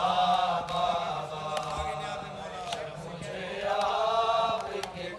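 A group of men chanting a noha, a Shia Urdu lament, together in two long melodic phrases, with a sharp strike about once a second.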